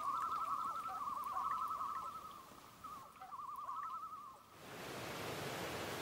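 Common loon giving its tremolo call, a rapidly wavering call repeated in several bouts. It breaks off about four and a half seconds in, and a steady hiss takes over.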